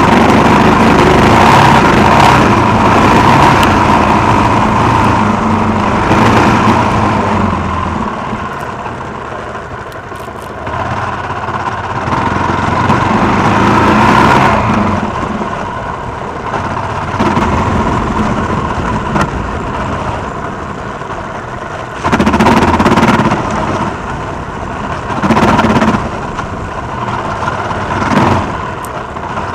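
Suzuki XF650 Freewind's single-cylinder engine being ridden off-road. It runs hard for the first several seconds, eases off, then comes back in repeated short bursts of throttle toward the end.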